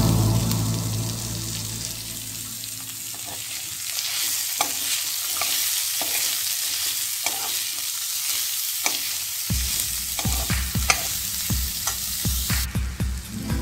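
Chopped capsicum and carrots sizzling in hot oil in a metal pan, with a steel spoon clicking and scraping against the pan as they are mixed. The spoon knocks come thicker and heavier in the second half.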